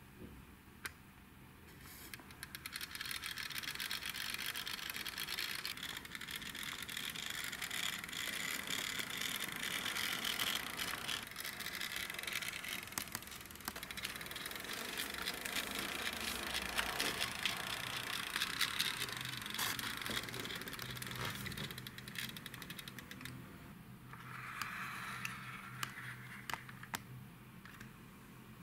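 Die-cast toy car's small wheels rolling on a wooden floor, a steady rolling rush starting about two seconds in and easing off near the end, with scattered light clicks and taps.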